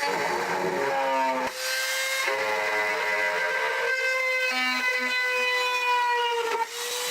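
Handheld electric rotary tool running at high speed with a bit drilling into a broken steel frame-rail bolt: a steady high whine that wavers slightly in pitch and dips briefly twice.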